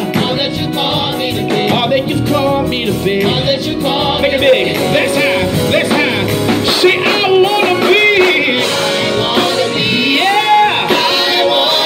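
Live gospel music: a male lead singer carries sustained, ornamented vocal runs with backing singers and the band accompanying.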